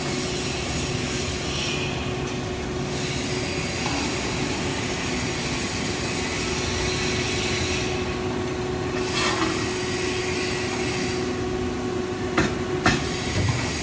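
The hydraulic lifting system of a vacuum homogenizing emulsifying mixer runs, lowering the lid: a steady motor hum over general machinery noise. The hum cuts off about twelve seconds in with a couple of sharp clicks as the lowering ends.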